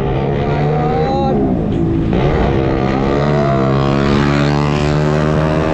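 Motorcycle engine running while riding, its pitch rising and dipping with the throttle several times, over a steady rush of wind noise.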